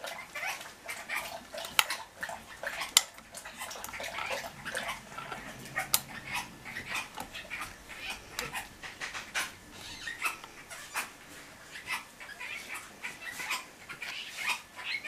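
A dog whimpering and carrying on excitedly while it waits to be fed, with many small sharp clicks and taps scattered throughout.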